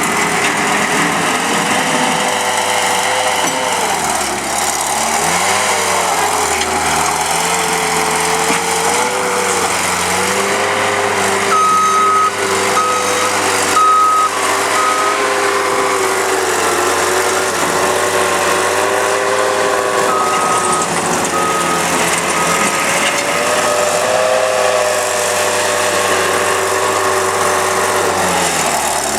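Bobcat T140 tracked skid steer's diesel engine running, its pitch rising and falling as the machine is worked. The backup alarm beeps in two spells, about 12 seconds in and again around 20 seconds, as it reverses.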